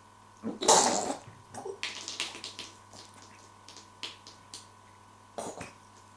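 Wet splashing and spluttering sounds in short irregular bursts. The loudest burst comes about half a second in, a run of smaller ones follows, and there is one more near the end.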